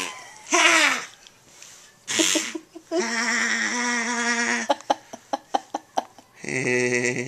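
An adult's playful vocal noises: two short, falling 'Ha!' bursts, then a long held note, a quick run of clicks, and a long, lower held note near the end.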